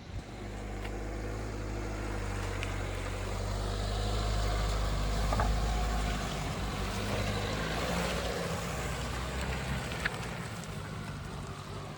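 Dacia Duster's 1.5 dCi four-cylinder turbodiesel running as the car drives off-road, with tyre and ground noise over it. The sound swells to its loudest about five seconds in and then eases off, with a few sharp knocks along the way.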